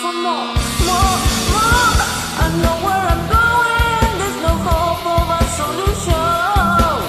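Hard rock music: a lead electric guitar plays held, bending notes over a full band with drums that come in about half a second in.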